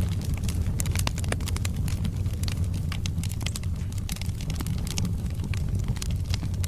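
Wood fire burning in a fireplace, crackling with many sharp, irregular pops and snaps over a steady low rumble.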